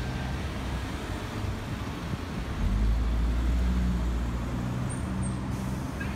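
Road traffic at a street junction, with a motor vehicle's engine running close by. It grows louder about two and a half seconds in and eases off near the end.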